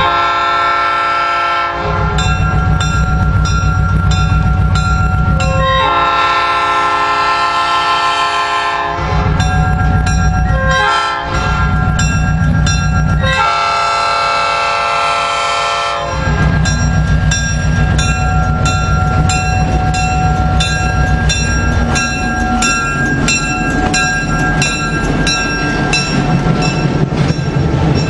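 Diesel locomotive's multi-chime air horn sounding two long blasts, a short one and a final long blast, the grade-crossing signal, over the engine's rumble as the train approaches. After the horn the locomotive and passenger cars roll past with a steady rumble and rhythmic rail clatter.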